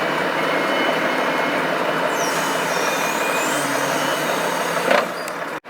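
Volvo FH logging truck's diesel engine running steadily while the timber crane works during loading, with a short sharp burst of noise about five seconds in; the sound cuts off abruptly near the end.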